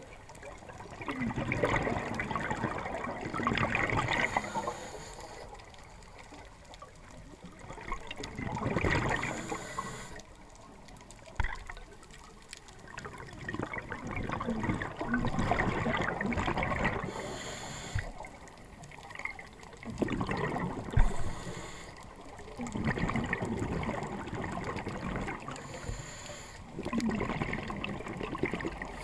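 Scuba diver breathing through a regulator underwater: a short hiss on each inhale, then a long rush of bubbling exhaust, repeating roughly every five seconds.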